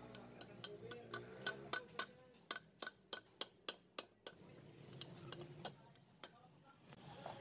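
Light metallic tapping, about three even taps a second, then a few scattered taps: a bearing being tapped into its oiled seat in the crankcase of a Yamaha RS100 two-stroke engine.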